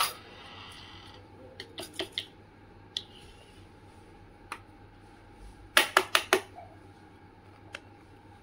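Miniature plastic toy kitchenware being set down and handled on a tabletop: scattered light clicks and clacks, with a quick run of four louder clacks about six seconds in.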